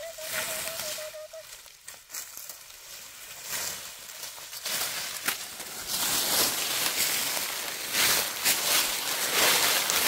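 Footsteps crunching and rustling through thick dry leaf litter going down a steep slope, quieter at first and growing louder and busier from about halfway through.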